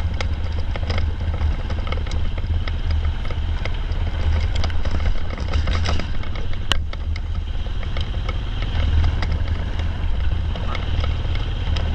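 A vehicle's engine running with a steady low rumble, with rattling over it and one sharp click about seven seconds in.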